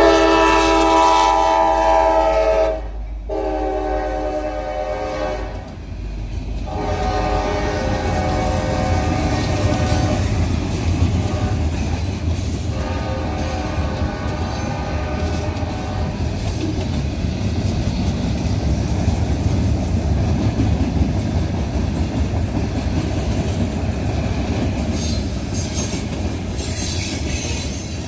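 Norfolk Southern local freight train's diesel locomotive horn sounds in four blasts, the last two nearly running together. The locomotive then rumbles past with the cars rolling and clicking over the rail joints, and a high wheel squeal comes near the end.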